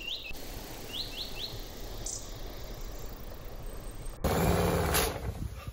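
Outdoor ambience with a few short bird chirps. About four seconds in, a loud rushing noise starts suddenly and lasts about a second and a half.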